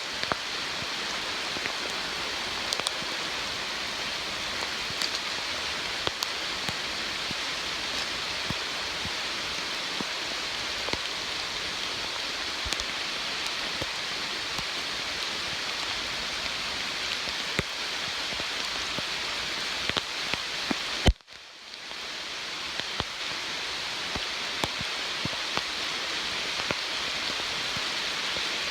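Steady heavy rain hissing, with scattered drops tapping close by. About three-quarters of the way through, a sharp knock is followed by a brief moment of near silence before the rain sound returns.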